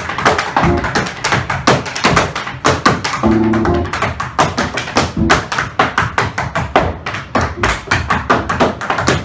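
Tap shoes striking the stage floor in a fast, improvised rhythm: dense runs of sharp taps with louder accents.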